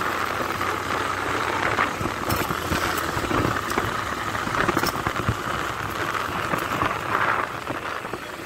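Motorcycle running along at road speed: a steady engine hum under a rush of wind on the microphone that swells and eases, with a few light ticks.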